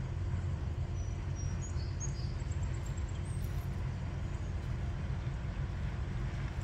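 A steady low rumble, with a few short, high bird chirps between about one and three seconds in.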